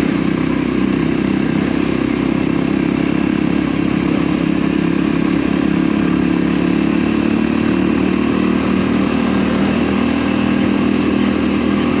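Voge motorcycle engine running at a steady, even pitch while riding a rough gravel track, heard from on board the bike.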